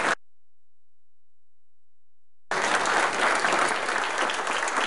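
Hall audience applauding. The audio drops out to dead silence for about two seconds, then the applause resumes.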